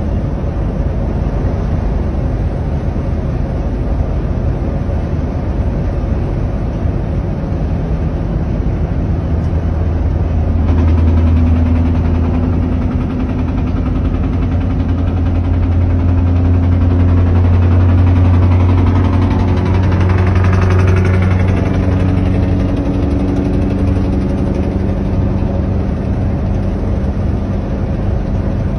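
Scania R650's 16-litre V8 diesel engine running. Its deep, steady note comes up strongly about a third of the way in, holds for some ten seconds, rises in pitch about two-thirds of the way through, then eases back.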